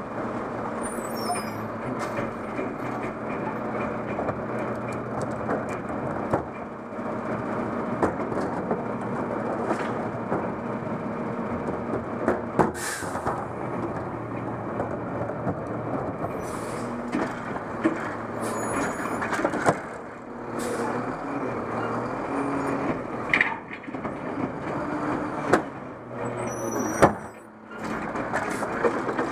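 Automated side-loader garbage truck running, its engine humming steadily under scattered metallic clanks and knocks from the body and lifting arm. Near the end the automated arm is out gripping a cart.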